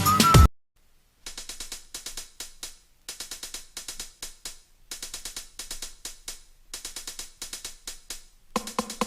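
Rapid light tapping in short runs of several quick taps each, with brief pauses between the runs.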